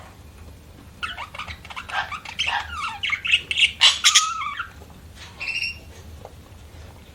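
Budgerigars chattering: a quick run of short warbled chirps lasting about three seconds, then a single harsh squawk about five seconds in, over a faint low hum.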